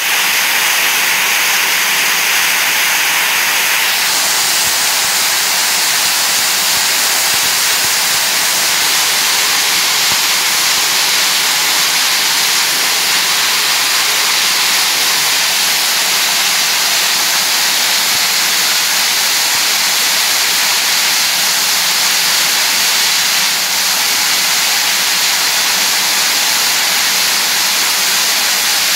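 Packing-tape rewinding machine running steadily, with film feeding off the big roll onto rows of tape rolls on three shafts: a loud, even, hissing rush that changes tone slightly about four seconds in.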